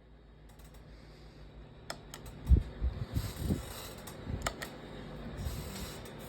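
A run of irregular clicks and low thumps, the loudest thump about two and a half seconds in, over a faint steady hiss.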